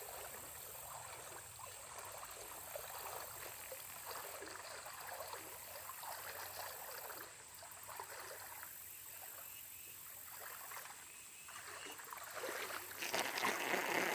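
Creek water running steadily, with a soft babble that grows louder near the end.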